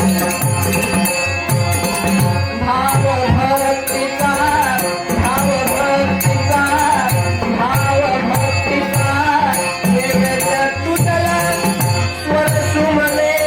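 Ganesh stavan, a devotional Marathi hymn, sung to a steady drone. It is accompanied by a hand drum playing repeated low strokes that fall in pitch, and by small cymbals keeping a regular beat.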